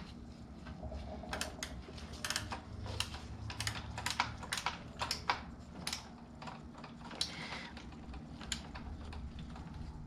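Irregular light clicks and taps from tools and small parts being handled during work on the motorcycle.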